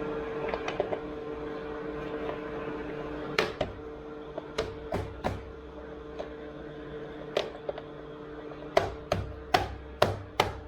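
Sharp metal clanks and knocks, about a dozen, from parts and tools being handled while the skid steer is put back together, coming faster and louder near the end. A steady low hum runs underneath.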